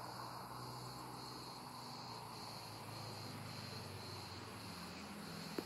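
Insects chirring: a faint, steady high-pitched trill that pulses slightly about twice a second. A single sharp click near the end.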